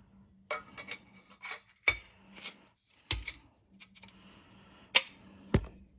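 Sheet-metal pieces, the old cut-out floor-pan section and the new patch panel, being handled and set against each other: scattered scraping and clinking with several sharp metallic knocks, the loudest about five seconds in.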